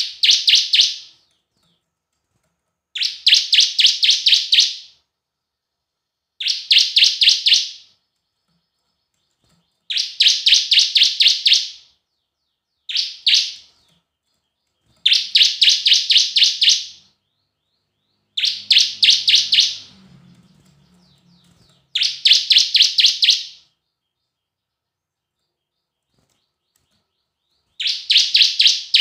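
Bar-winged prinia (ciblek) singing: phrase after phrase of quick, high notes at about four or five a second, each phrase lasting one to two seconds, with pauses of one to four seconds between them and one much shorter phrase about halfway through.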